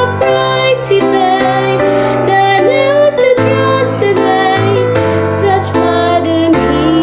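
A young woman singing a hymn solo over instrumental accompaniment with sustained low notes.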